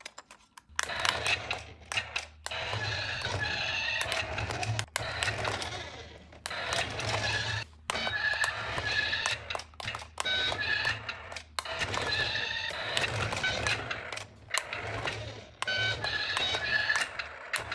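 Upbeat electronic music with a steady bass and a repeating high melody in short phrases, starting about a second in, with sharp clicks scattered through it.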